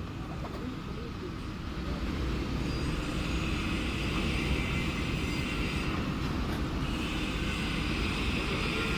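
Steady low mechanical rumble, like a running engine or machine, with a hiss that grows louder about two seconds in.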